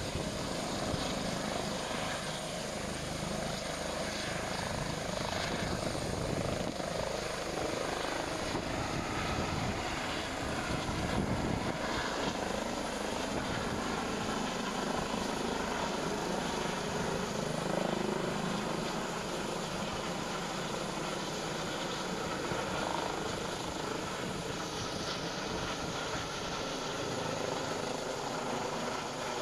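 Air-rescue helicopter lifting off and climbing away overhead: the steady noise of its turbine engines and rotor.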